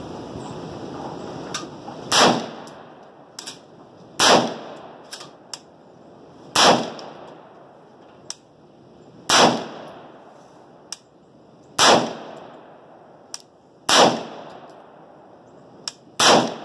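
AR-style rifle fired seven times in slow, aimed semi-automatic fire, a shot every two to three seconds, each crack trailing off in a short echo. Fainter sharp cracks fall between the shots.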